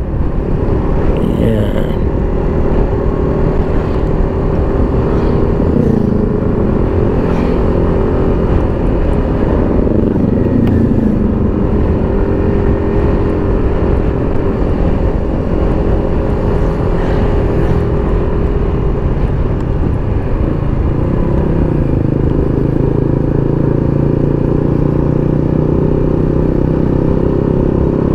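Motorcycle engine running while riding, mixed with wind and road noise on a bike-mounted camera's microphone. The engine note rises and falls a few times, then holds a lower steady note over the last third.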